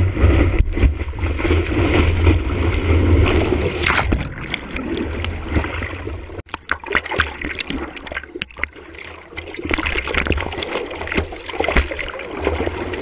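Whitewater rushing and splashing around a surfboard with the microphone at water level, with heavy wind buffeting on the microphone for the first four seconds. After that, water sloshes and gurgles in irregular splashes against the board.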